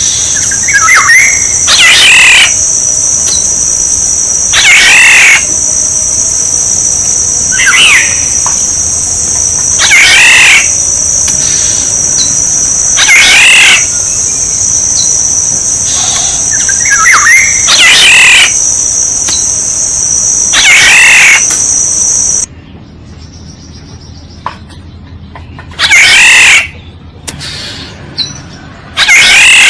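Oriole calling again and again, one loud call about every three seconds. Under the calls runs a steady high insect buzz that cuts off suddenly about two-thirds of the way through.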